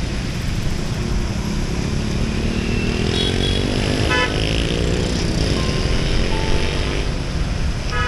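Motorbike traffic on a wet, flooded street: engines running with a low rumble, one rising in pitch as it speeds up. Short horn toots sound about three and four seconds in and again at the end.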